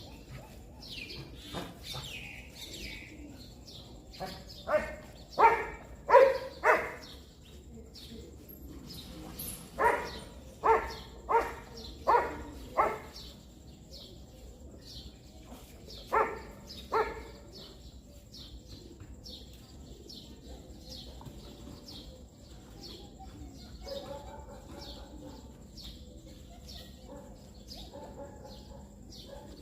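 A dog barking in three runs of short barks: four, then five, then two. Small birds chirp steadily throughout.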